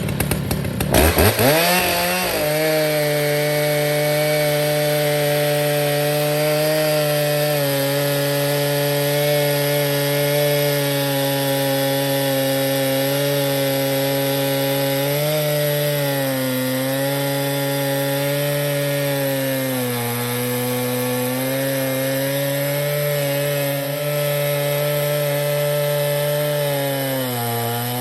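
Stihl chainsaw on an Alaskan chainsaw mill revving up in the first couple of seconds, then running steadily at full throttle as it rips lengthwise through a cedar log. Its pitch sags briefly a few times under load.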